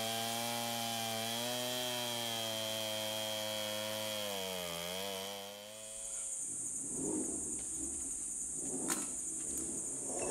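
Two-stroke chainsaw running steadily under load as it rips a log lengthwise in a chainsaw mill, its pitch dipping briefly near the middle. About six seconds in it gives way to a steady high whine over a rough rustling noise, with one sharp click near the end.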